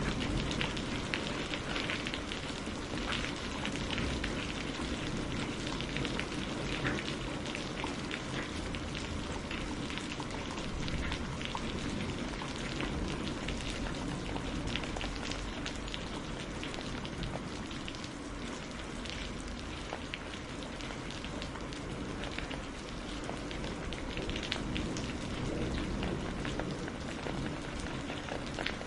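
Rain falling steadily, a constant hiss with many distinct drop impacts throughout.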